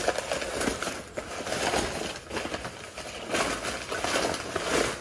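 Bubble wrap and crumpled packing paper rustling and crinkling as they are pulled apart by hand, unevenly, with louder stretches in the middle and near the end.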